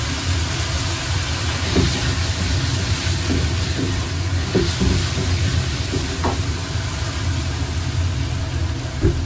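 High-output gas wok burner running with a steady low rumble and hiss under a carbon-steel wok, with the mapo tofu sauce sizzling and bubbling in the pan and brief pops now and then.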